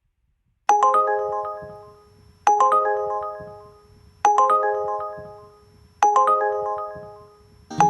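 Uber Eats delivery app's new-order alert chime: a quick run of bright bell-like notes that rings out and fades, played four times about 1.8 seconds apart. Near the end a song's backing music comes in.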